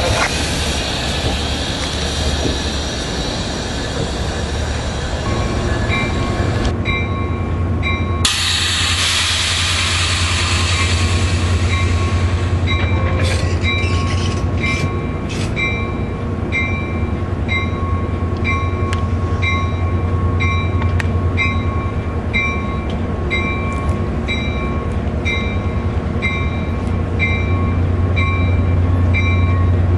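Commuter train on the tracks close by, with a steady low rumble throughout. From about six seconds in, a short ringing ding repeats about once a second.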